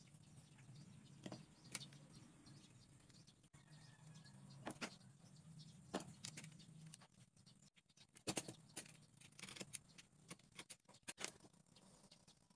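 Faint, scattered taps and clicks of small popsicle-stick pieces being handled and set down on a wooden board, more frequent in the second half; otherwise near silence.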